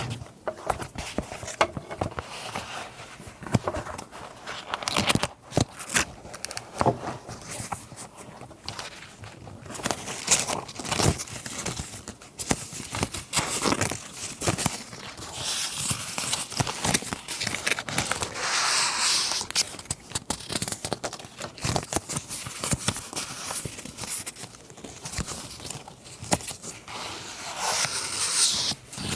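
Paper being handled for scrapbooking: rustling and crinkling with many small taps and clicks, and denser stretches of crinkling and tearing about halfway through and near the end.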